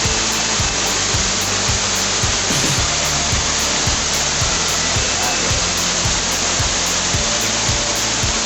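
Loud, steady rush of falling water from a waterfall, with music under it carrying a steady beat and a bass line.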